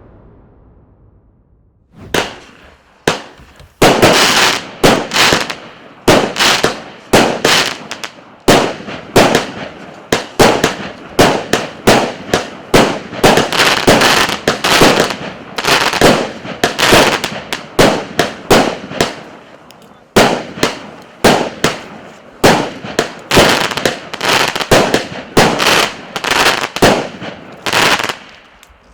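A 25-shot, 0.8-inch consumer firework cake (EC260 'Maracas') firing: single shots about two and three seconds in, then a steady run of launches and bursts roughly twice a second, with crackling between them. The shots stop abruptly near the end.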